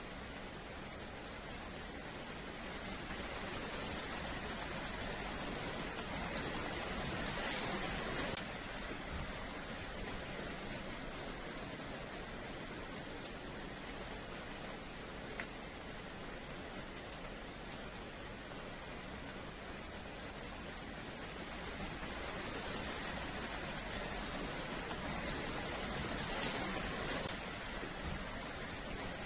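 Steady rain falling on a wet paved yard, growing heavier for a few seconds about a quarter of the way in and again near the end.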